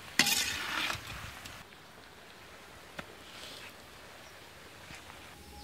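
Metal ladle and iron kadai scraping harshly for about a second as the bitter gourd fry is finished and the pan is taken off the wood fire, then a faint outdoor background with a single light click about three seconds in.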